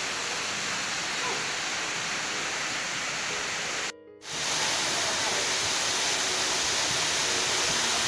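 Waterfall's steady rush of falling water. It drops out briefly about four seconds in, then comes back a little louder.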